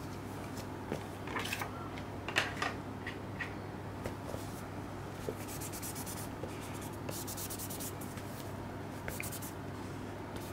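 Gloved hands handling a cardboard Blu-ray slipcase: short bursts of fabric rubbing and scraping on card, with a few light taps, over a steady low hum.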